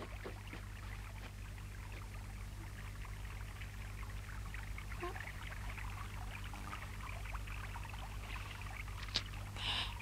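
Faint trickling and dripping of snowmelt water, many small drips over a steady low hum, with a short click near the end.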